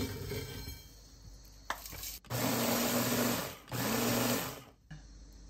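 Small electric kitchen blender running in two short pulses of about a second each, grinding coarse sea salt.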